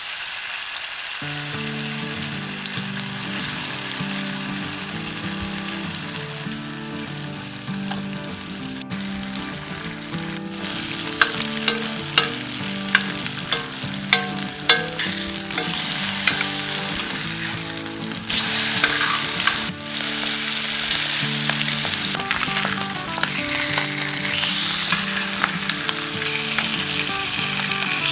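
Fish steaks shallow-frying in oil on a cast-iron tawa, the oil sizzling steadily. A steel spatula clicks and scrapes against the pan as the pieces are turned, with a run of sharp taps about halfway through, and the sizzle grows louder for a few seconds twice in the later part.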